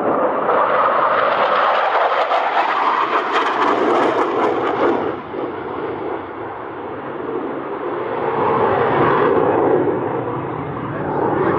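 Saab JAS-39C Gripen fighter's single Volvo RM12 jet engine during a display flight: a loud, rushing jet roar that dips about five seconds in and swells again a few seconds later as the aircraft manoeuvres.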